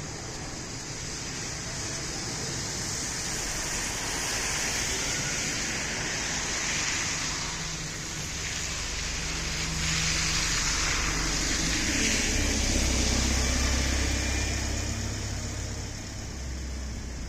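Road traffic: cars passing by, with tyre and engine noise swelling and fading as each goes past. The loudest pass is about ten to fourteen seconds in, with a deeper engine rumble underneath.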